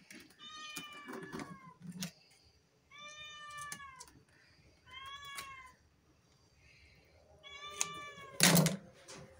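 Domestic cat meowing four times, each call rising then falling in pitch and under a second long, with pauses between. Near the end a short, sharp thump is louder than the meows.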